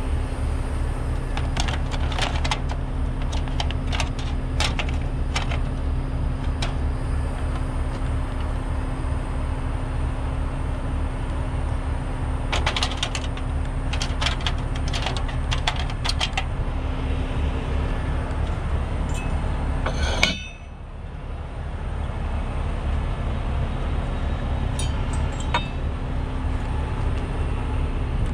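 Heavy truck diesel engine idling with an even low rumble, under two spells of light metallic clinks and rattles from rigging the tow at the front of a box truck. A sharp click comes about twenty seconds in, and the rumble dips briefly after it.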